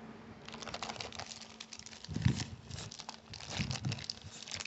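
Clear plastic bag crinkling as hands pull a boxed microphone out of its packaging, with a few dull knocks against the box, the loudest about two seconds in.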